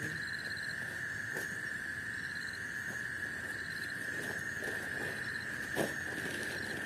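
Night insects, crickets, calling in a steady unbroken drone, with a second, higher insect giving short rapid trills every second or so. There is a single sharp knock near the end.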